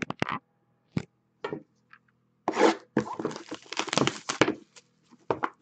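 Clear plastic shrink wrap being torn and crinkled off a sealed trading-card hobby box: a few light knocks and scrapes as the box is handled, then about two seconds of crackling, tearing plastic from about halfway in.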